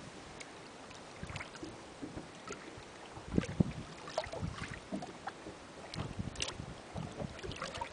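Faint, irregular small splashes and sloshes of water at the surface, made by a dorado held in the river to recover before its release.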